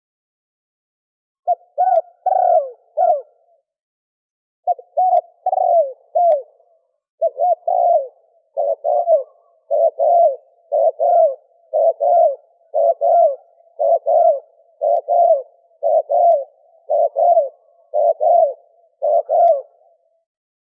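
Spotted dove cooing in the 'thổ kim' style, a lure call for drawing wild doves: a few short broken phrases of low coo notes at first, then from about seven seconds a steady run of repeated coo phrases, roughly one a second.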